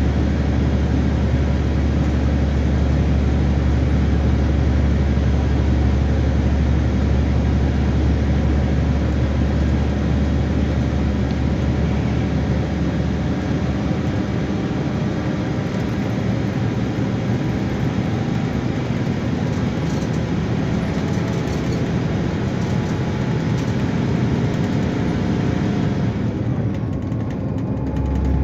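MAN D2066 turbo-diesel engine of a Neoplan Starliner coach, heard from inside the cabin running at road speed: a steady low drone under tyre and road noise. The drone eases off through the second half, and the noise dips briefly near the end before the drone swells again.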